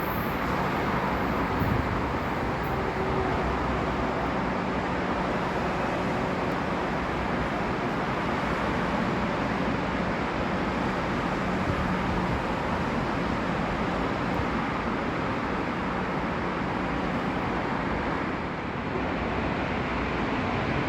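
Steady rumble and hiss of rail traffic in a station, with a faint hum in the first several seconds.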